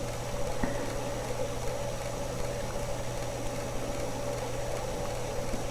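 Steady background hiss with a constant low electrical hum and a faint high steady whine: the room tone of a quiet room, with nothing else happening.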